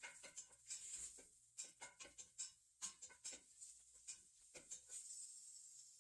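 Faint sizzling of beef frying in sesame oil in a pot, with irregular light clicks and scrapes of a utensil stirring it.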